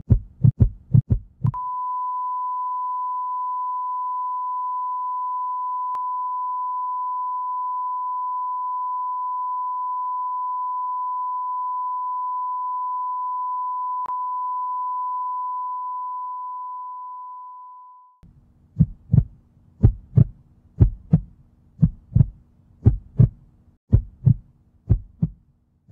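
Heartbeat sound effect: fast low thumps that stop about one and a half seconds in, replaced by a single steady high flatline beep. The tone holds for about fifteen seconds and then fades away. Near the end the heartbeat starts again, slower, in paired beats about once a second.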